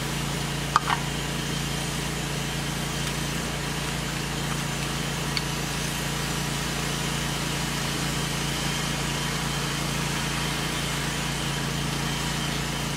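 Steady low mechanical hum, with a short click about a second in and a faint tick near the middle.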